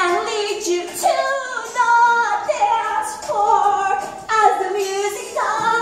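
A woman singing loudly and deliberately badly, in long held, wavering notes with slides between them: comic bad singing that makes listeners cover their ears.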